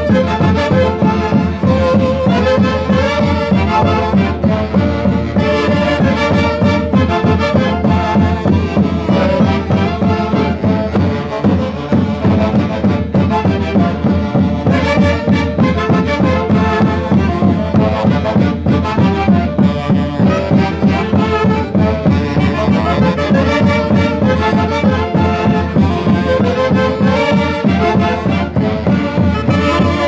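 An orquesta típica of the Mantaro valley, led by saxophones and clarinets, playing lively Santiago festival dance music with a steady beat.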